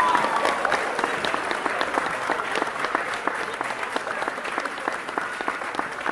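A crowd applauding, many hands clapping, slowly fading away.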